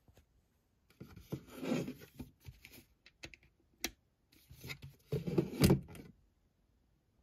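A hollow plastic light-up pumpkin handled by hand: two stretches of plastic rubbing and scraping as it is picked up and turned over, with a few sharp clicks in between.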